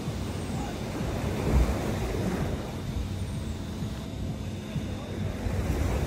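Small waves breaking and washing up a sandy beach, with wind rumbling on the microphone and a strong gust about one and a half seconds in.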